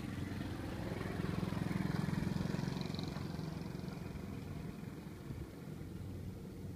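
An engine running with a low, steady drone that swells from about one to three seconds in and then eases off.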